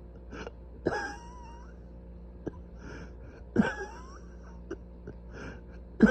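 A person coughing three times, about two and a half seconds apart, the last near the end. Each cough trails off into a brief wavering whistle, with softer breathy sounds between. The coughing comes from severely inflamed airways.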